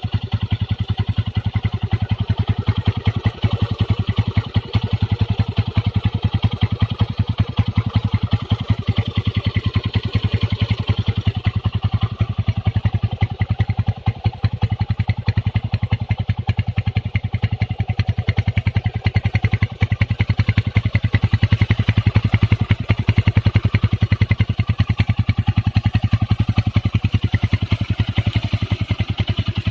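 Modified Honda GL Pro motorcycle's single-cylinder four-stroke engine idling steadily with a fast, even firing beat while it warms up.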